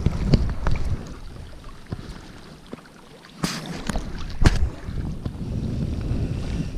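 Wind buffeting the microphone as a fluttering low rumble, with a few sharp knocks and a short rush of noise about halfway through.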